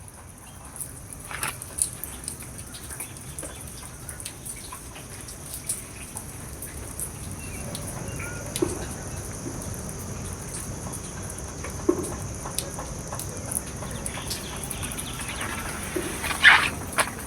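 A few short animal calls now and then, one louder call near the end, among scattered light clicks over a steady hiss.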